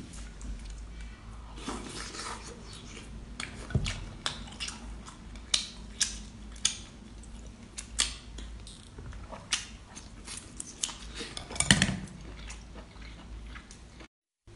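Close-up eating sounds: irregular sharp clicks and taps of chopsticks against a glass dipping bowl, mixed with wet chewing of sea-snail (conch) meat.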